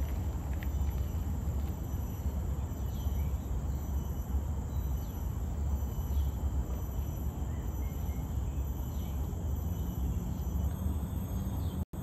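Steady high-pitched drone of forest insects, held on several fixed pitches over a constant low rumble, with a few faint short chirps.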